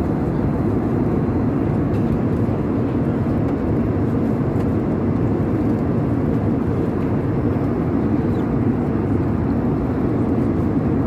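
Steady cabin noise of an airliner in flight: the even, low roar of the engines and rushing air as heard from inside the passenger cabin.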